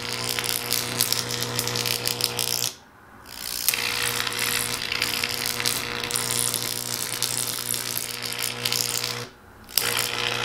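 High-voltage electric arc buzzing steadily with a mains hum as it tracks through the cracks in a tablet's glass screen, burning it. The arc cuts out twice, for about a second around three seconds in and briefly near the end, and each time it strikes again with a sharp snap.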